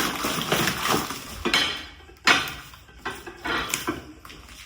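Large dinner plates from a boxed dinner set being unpacked and handled: irregular clinks and knocks, the loudest a sharp knock a little past two seconds in.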